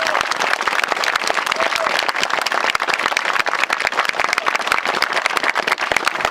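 Crowd applauding: steady clapping of many hands.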